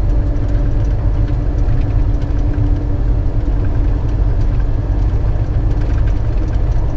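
Inside a moving vehicle on the freeway: a steady engine drone and road rumble, with a constant low hum.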